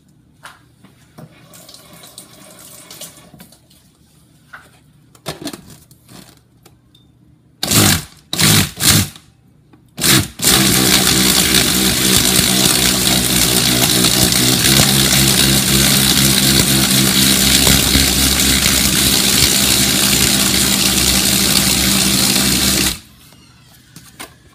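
Countertop blender pulsed in a few short loud bursts, then run steadily for about twelve seconds, puréeing raw placenta, and switched off near the end. Before that, small clicks and handling noises as pieces go into the jar.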